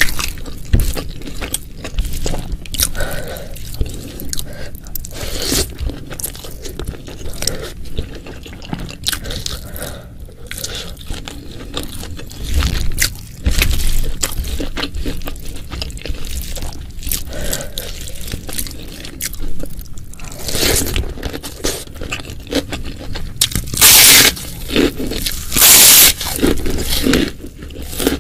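Close-miked eating sounds: steady chewing and crunching with many small clicks, mixed with scraping. Two loud, harsh bursts come near the end.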